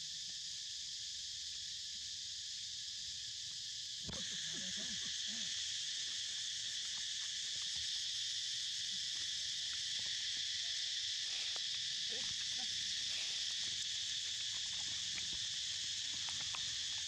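Steady, high-pitched insect chorus, a little louder from about four seconds in, with faint ticks and rustles underneath.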